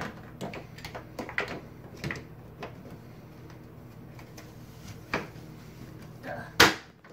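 Refrigerator's front bottom panel being fitted back on: scattered light clicks and knocks, then one loud sharp knock near the end.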